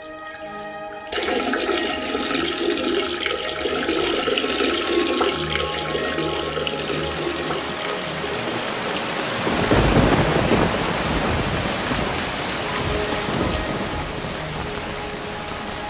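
Heavy rain starts abruptly about a second in, under sustained music tones. A rumble of thunder swells around the tenth second, and the rain falling on a wet surface carries on.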